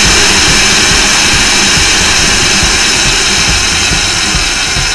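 Electric kitchen mixer running at speed: a loud, steady whirring noise.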